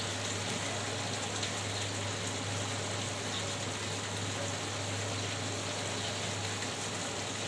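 Soybean and potato curry in coconut milk simmering in a pan on the stove: a steady sizzling hiss over a steady low hum.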